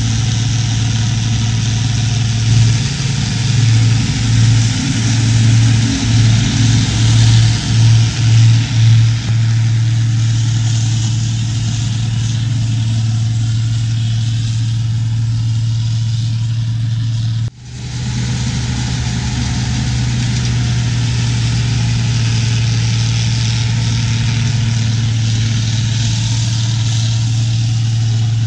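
Tractor engine and forage harvester running steadily while chopping corn silage, with a low steady hum that surges and pulses for several seconds near the start. The sound drops out briefly about two-thirds of the way in, then carries on steadily.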